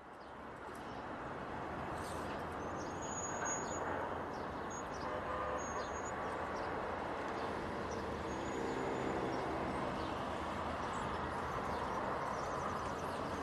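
Outdoor city ambience: a steady hum of distant traffic fading in at the start, with a few short bird chirps over it.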